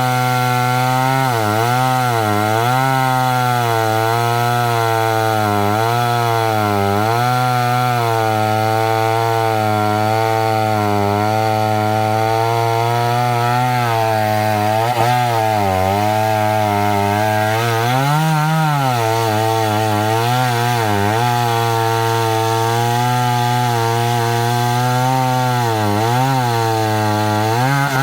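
Two-stroke chainsaw cutting through a pine log under load, running steadily for the whole stretch, its engine pitch sagging and picking back up every second or two as the chain bites, with a short rise in revs at about eighteen seconds in. The long continuous cut fits ripping slabs lengthwise from the log.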